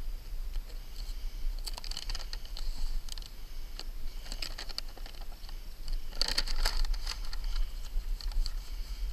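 Paper release liner from ice and water shield crinkling and rustling as it is crumpled and rolled up by hand. It comes in three bursts, the loudest about six seconds in.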